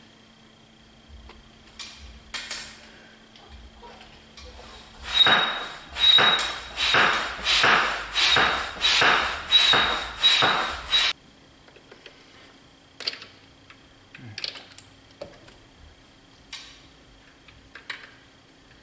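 About ten rhythmic, noisy strokes, roughly two a second, lasting about six seconds, as coolant is sucked out of a Ford 6.7L diesel's thermostat housing through a hose with the thermostat pushed open. Before and after the strokes come light scattered clicks and knocks of tools against engine parts.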